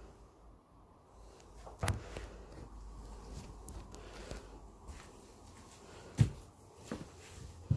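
Slow footsteps on a bare floor, heard as three dull thuds with the loudest about six seconds in, over quiet room tone.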